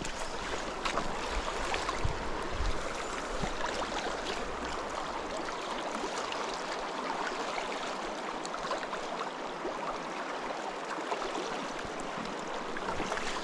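Shallow river flowing steadily over a gravel bed, a constant rushing of water.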